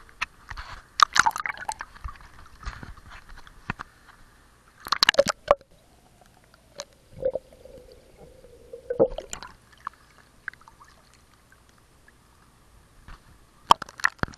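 Muffled underwater sound from a GoPro submerged in a swimming pool: clusters of clicks and bubbling roughly every four seconds, with a faint steady hum in between.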